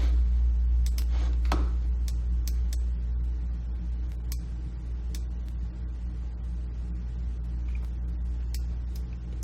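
Steady low electrical-sounding hum, with scattered sharp computer mouse clicks about once or twice a second.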